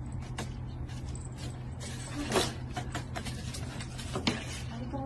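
Light taps and scuffs of a cat playing on a wooden floor, with two slightly louder knocks, over a steady low hum.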